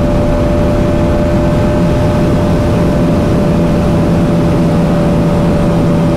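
Bajaj Pulsar NS200's single-cylinder engine running at a steady high speed on a top-speed run, its note held constant under heavy wind rush on the handlebar-mounted microphone.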